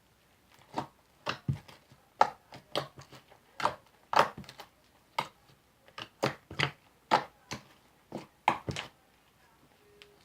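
Homemade glue-and-soap slime being poked and folded by hand, making a series of short sticky pops and squelches, about two a second, starting about a second in.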